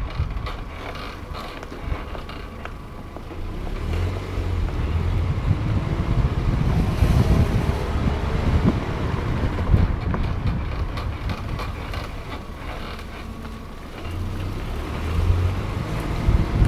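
Ford Fiesta 1.4 Zetec on the move with a low rumble that swells and fades twice, and wind buffeting the microphone.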